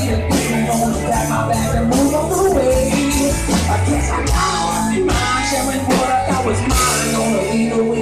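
Live rock band playing loud: electric guitars over a drum kit.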